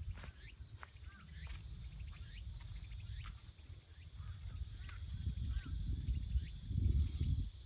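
Small birds chirping again and again in short calls, over a low rumble on the microphone that swells about seven seconds in.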